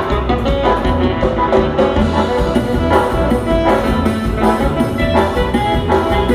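Tierra caliente band playing an instrumental passage of a dance tune, with drums, bass and a bright melodic instrument over a steady beat.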